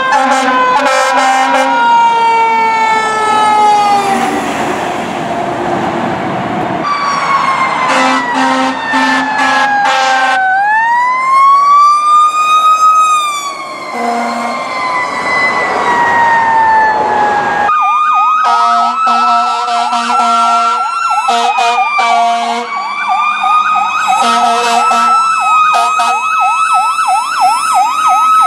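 Fire truck sirens in long rising and falling wails, changing to a fast up-and-down yelp in the last few seconds. Short, repeated horn blasts cut in over them.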